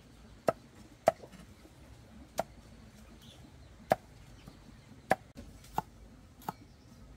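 Chopping: about seven sharp, irregularly spaced strikes, each a short knock.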